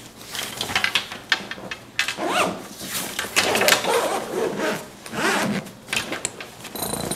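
Zipper of a padded fabric carry bag being pulled open in several rasping runs, with rustling and handling of the fabric.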